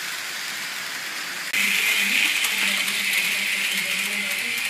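Small electric drive motor and gearing of a model vehicle on the layout running: a steady high whirring hiss with a fine rattle of gears. It gets suddenly louder about a second and a half in.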